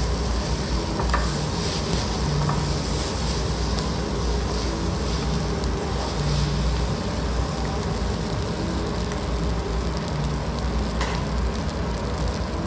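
Fried rice sizzling on a hot griddle plate as it is stirred and flipped with wooden spatulas: a steady sizzle with a few light scrapes and taps, over a low hum.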